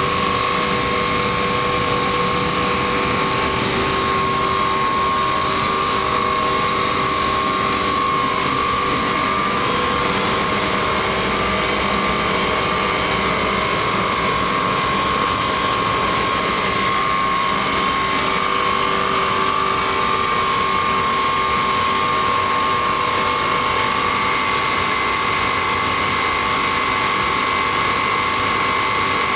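Industrial boiler burner firing: a steady, loud mechanical running noise from its fan and pump, with a constant high whine over it.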